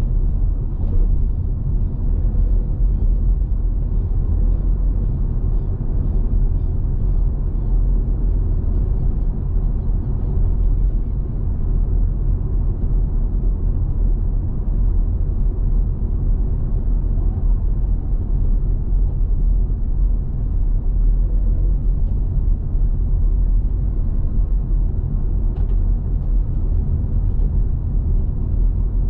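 Car driving: a steady low rumble of engine and road noise. Faint regular ticking, about two or three a second, runs over it for roughly the first ten seconds.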